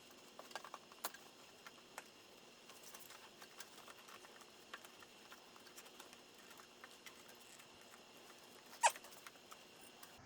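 Faint scattered clicks and light scratching as a dirt-bike inner tube and tyre are worked onto the rim by hand, with one sharper snap a little under nine seconds in.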